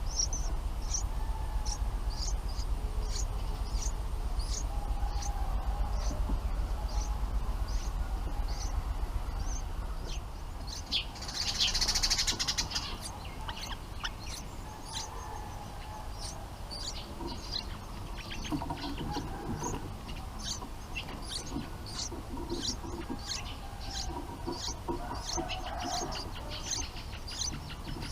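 Bulbuls chirping at the nest: short, high chirps repeated about twice a second. About twelve seconds in comes a brief, louder rustle or flutter. A low background rumble fades after the first ten seconds.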